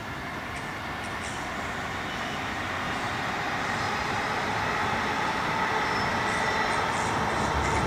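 Steady rushing noise of an approaching vehicle, growing gradually louder, with a faint steady tone in it.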